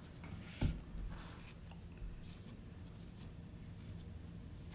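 Soft rubbing and light scratching of floured fingers crimping pie-crust dough around the rim of a pie plate, with one dull thump about half a second in.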